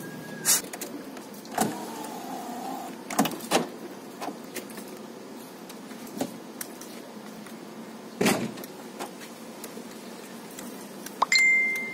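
Newly fitted car power window regulator motor whining up and stopping with a click just after the start, followed by several sharp clicks and knocks. A steady high-pitched electronic beep starts near the end.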